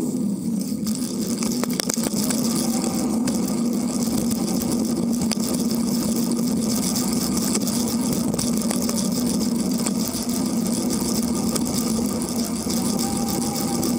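Steady road rumble of a bicycle rolling over asphalt, picked up by a camera mounted low on the bike, with a constant low hum and a few light rattling clicks.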